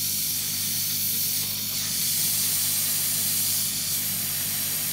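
Compressed air and methyl alcohol hissing strongly and steadily out of the open end of a refrigerator condenser's copper outlet pipe, over the steady hum of the running freezer compressor. The strong hiss comes from the high discharge pressure of the freezer compressor as the methyl flush drives moisture out of the condenser before the filter-dryer is fitted.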